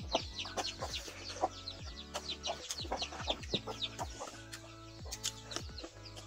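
Background music with a steady beat, with chickens clucking alongside.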